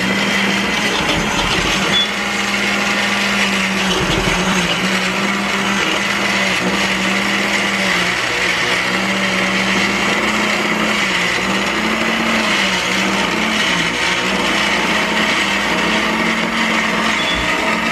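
Black+Decker countertop blender running steadily, chopping green peppers and onion into a purée. The motor's hum wavers slightly in pitch as the load shifts.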